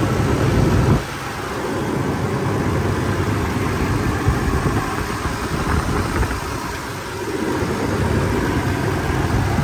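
Toyota 3.4-litre 5VZ-FE V6 idling steadily, heard from above the open engine bay.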